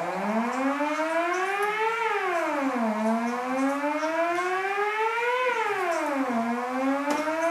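Analog synthesizer holding one buzzy note while a knob is turned, so the pitch glides slowly up and then drops quickly, twice, like a siren. Near the end it starts rising a third time.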